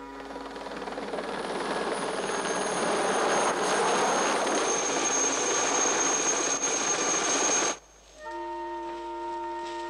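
Small helicopter flying overhead, its rotor and engine noise growing louder over the first few seconds with a high steady whine on top. The noise cuts off abruptly about three-quarters of the way through.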